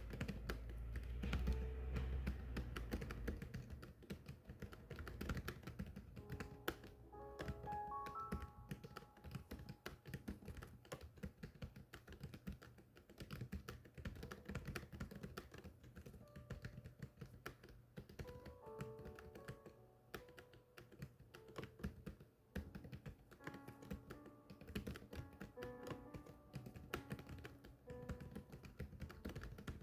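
Typing: a steady, quick stream of key clicks, with soft background music playing melody notes underneath.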